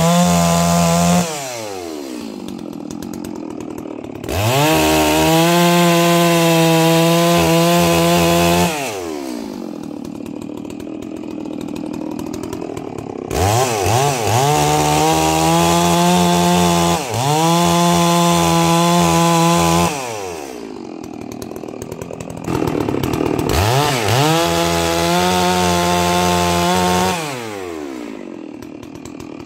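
Holzfforma G660 two-stroke chainsaw, about 92 cc, working at full throttle through logs and dropping back to idle between cuts, about four times. The pitch falls each time the throttle is released and climbs again as the next cut starts. The new saw is being run in.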